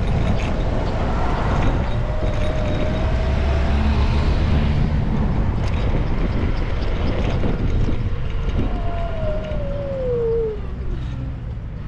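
Electric scooter riding over paved cycle path and crossings: a low rumble of wind and wheels, with the motor's thin whine drifting slightly up, then sliding steadily down about nine seconds in as the scooter slows.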